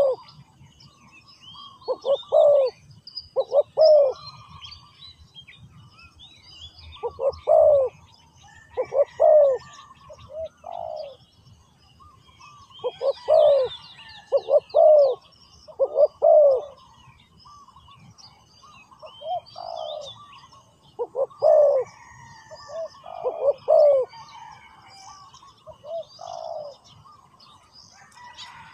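Spotted dove cooing: phrases of two or three low coos, repeated every few seconds. Faint chirping of small birds runs behind it.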